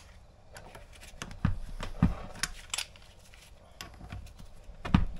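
Irregular clicks and knocks of metal parts being handled: a brake caliper and its piston, just pushed out with compressed air. The sharpest knocks come about 1.5 and 2 seconds in, and again near the end.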